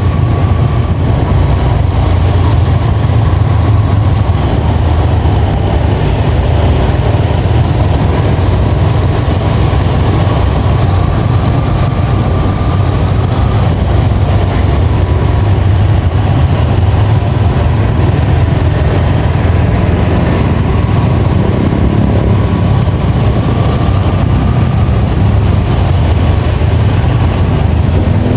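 Yamaha XSR155's single-cylinder engine running with a steady, deep rumble, its revs holding even.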